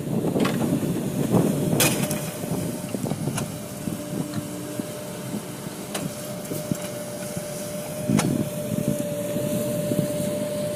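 Excavator's diesel engine running steadily under load, with a steady whine and a few sharp knocks, the loudest about two seconds in and again near the end.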